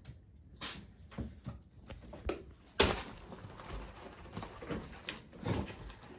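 Capuchin monkeys moving about and playing: irregular knocks, bumps and rustles, the loudest a sharp knock about three seconds in.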